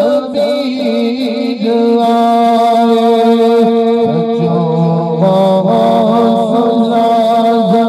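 A man singing a naat in a chant-like style into a microphone, drawing out long held notes with ornamented bends between them.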